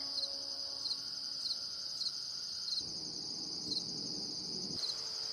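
Crickets or similar insects trilling steadily in a high pitch, with short double chirps repeating every second or so. A low rushing noise joins for about two seconds midway and stops abruptly.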